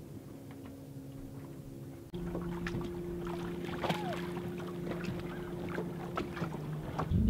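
Water splashing and slapping as a swimmer paddles and kicks on an inflatable float, over a steady low hum. About two seconds in, the sound becomes louder and the splashes begin.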